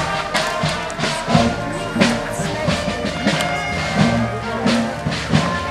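A brass band playing a march: sustained horn notes over a steady beat of about two strokes a second.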